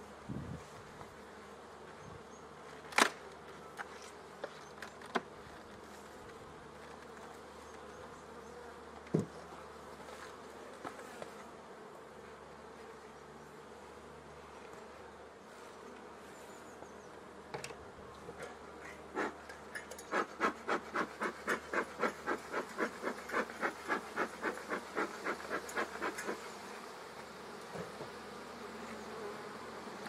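A honeybee colony humming steadily in an open hive. There are a few sharp knocks, and later a quick rhythmic run of about three strokes a second for several seconds.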